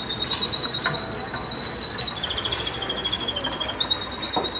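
Crickets chirring: two high, continuous trills overlapping, one stepping slightly in pitch now and then.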